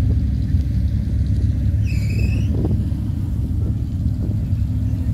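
A car engine idling with a steady low rumble. A short high-pitched call sounds briefly about two seconds in.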